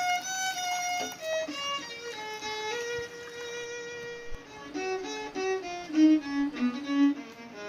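Background music: a fiddle melody of held notes that step up and down in pitch.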